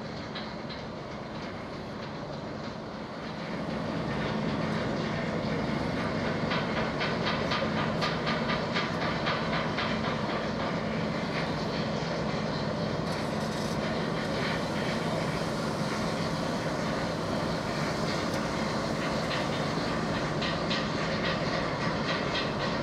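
Steady low drone of a passing container ship's engine, which grows louder about three to four seconds in and then holds steady.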